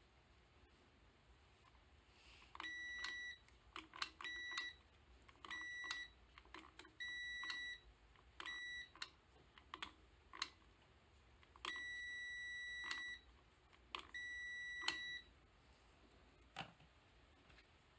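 AstroAI DM6000AR digital multimeter's continuity beeper sounding seven times, in beeps of uneven length (the longest about a second and a half), with sharp clicks between them as the test probes touch the wiring. The beep signals a closed, continuous circuit through the repaired wiring.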